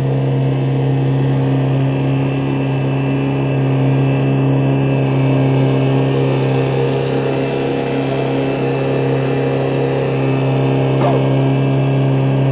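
Small aluminium boat's outboard motor running at a steady cruising speed, heard on board with water rushing along the hull.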